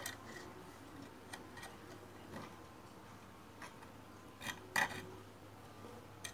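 Scattered light clicks and taps of metal test probe tips touching a resistor's leads and the circuit board, with a louder close pair of clicks about three quarters through.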